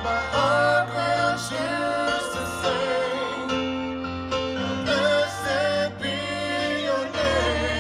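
Live worship band playing, with acoustic guitar, violins and keyboard in the mix.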